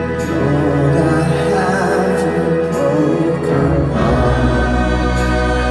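A large live band with choir plays a slow song through an arena PA. Sustained chords ring over a deep bass drone, with voices in the middle, and the bass note shifts about four seconds in.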